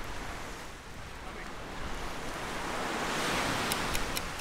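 Ocean surf breaking on the beach, swelling to a loud wash about three seconds in. Near the end comes a run of quick sharp clicks, about four a second.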